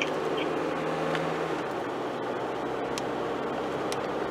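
Steady engine and road noise inside the cabin of a moving car. A low hum drops away about a second and a half in.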